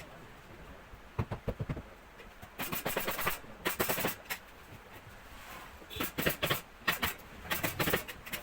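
Staple gun firing in quick runs of sharp shots, several at a time with short pauses between runs.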